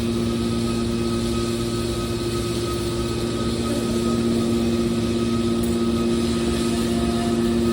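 Horizontal hydraulic metal baler running with a steady machine hum that holds one pitch, with no change in speed.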